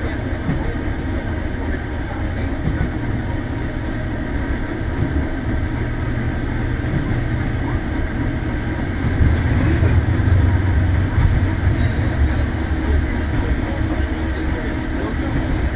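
A 1924 Kalmar Verkstad A12 tram running along the track, heard from inside the car: a steady low rumble of wheels on rails, growing louder about nine seconds in.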